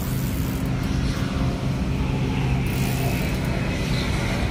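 Line being pulled by hand off a Shimano Katana 4000 HG spinning reel, which clicks in two short runs, over a steady low rumble.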